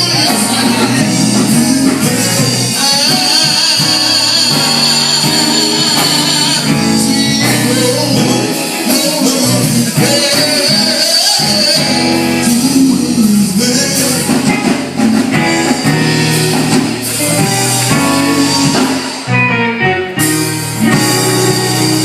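Gospel music: singing over a band of instruments, with steady percussion.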